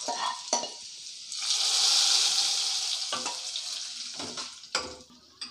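Hot oil tempering of mustard seeds, cumin, dried red chillies and shallots poured onto mashed greens and lentils: about a second in it sizzles loudly, then fades over a couple of seconds. A few sharp metal knocks of the pan against the pot come before and after.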